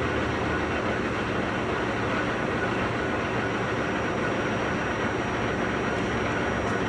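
Bullard vertical turret lathe running under power: a steady mechanical rumble with a low electrical hum, unchanging throughout.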